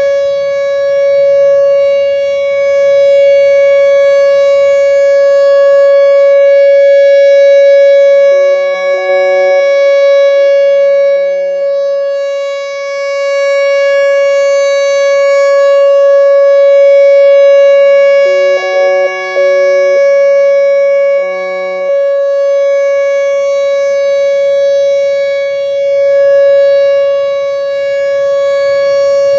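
Whelen Vortex electronic outdoor warning siren sounding its steady full-alert tone, one unwavering pitch, swelling and fading in loudness about every ten seconds. This is the monthly test of the steady alert signal.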